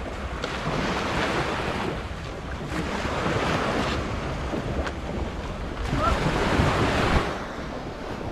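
Wind buffeting the microphone over sea waves, a loud rushing noise that swells and eases and is loudest about six to seven seconds in.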